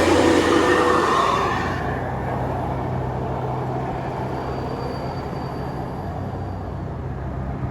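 Loud rush of a large vehicle for about the first two seconds, cutting off abruptly, then a bus engine running with a steady low hum.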